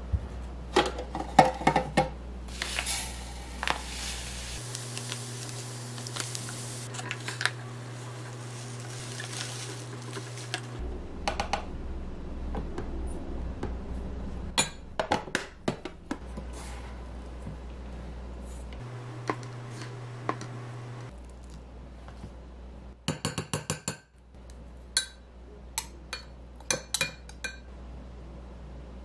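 Kitchen prep sounds: a knife cutting on a wooden chopping board, then a metal spoon clinking and scraping against a glass measuring cup and a plastic container as seasoning is measured in. Scattered sharp clinks and knocks, with a quick run of clicks near the end.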